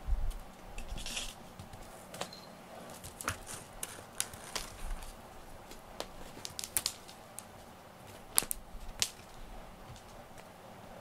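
Cat-teaser wand toy being played with the cats: scattered light clicks, taps and rustles, with a dull bump at the very start.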